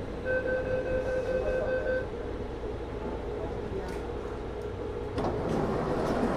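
Door-closing warning beeps on a Taipei Metro Wenhu line train: a rapid run of electronic beeps lasting under two seconds over the steady hum of the car. A couple of knocks follow, and the car's noise grows louder about five seconds in.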